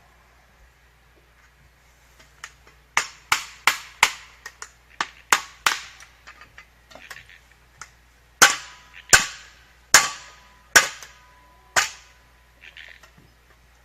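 Hammer driving nails into wood for a chick hutch. First comes a quick run of four strikes about three seconds in, then lighter taps, then five hard, evenly spaced blows with a short metallic ring.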